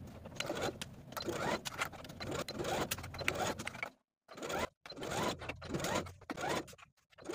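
Electric home sewing machine stitching a seam in short runs, its motor whine rising in pitch as each run starts. The sound cuts out briefly about four seconds in and again near the end.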